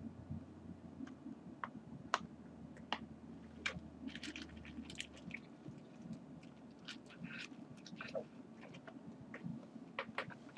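Faint, irregular small clicks and crackles over a low room hum, bunched most thickly about four to five seconds in.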